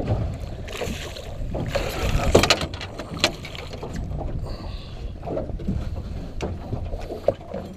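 Wind rumbling on the microphone and water lapping and splashing against a small fishing boat, with a few sharp knocks as a landing net is dipped in the water beside the hull.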